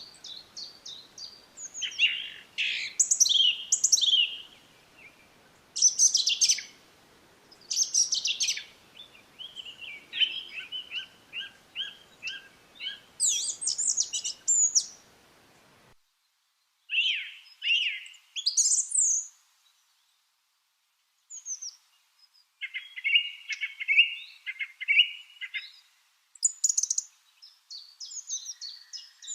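Lovebirds chirping: bursts of sharp, high, squeaky chirps in quick runs, separated by short pauses.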